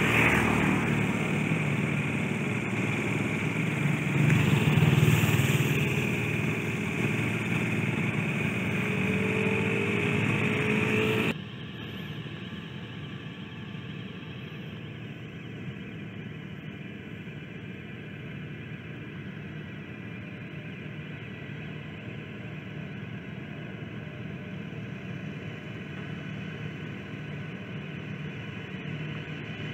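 Motor vehicle engine running close by, loudest about five seconds in, with a rising pitch just before it cuts off abruptly about eleven seconds in. A quieter steady hum follows.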